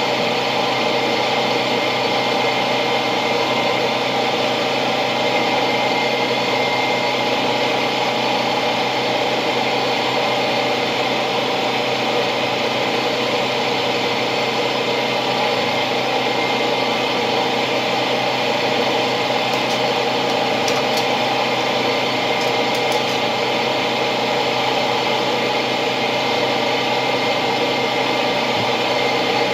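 A small motor running steadily: a constant mechanical hum with a thin high whine, unchanging in pitch and loudness.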